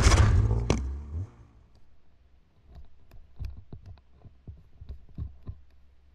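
Snowmobile engine settling to a low steady idle after a loud burst in the first second, with faint irregular clicks over the hum.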